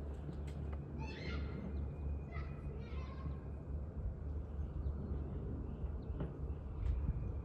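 Harley-Davidson Low Rider ST's Milwaukee-Eight 117 V-twin idling steadily as it warms up after a fresh oil change, with a low pulsing rumble. Birds chirp briefly about one second in and again around three seconds in.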